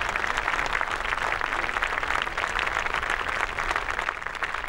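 Audience applauding, a dense patter of many hands clapping that begins to fade near the end.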